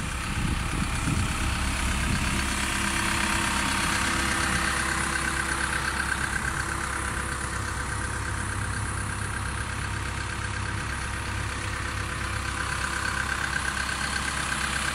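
Diesel engine of a Cat CW34 pneumatic-tyred road roller running steadily as the roller moves slowly.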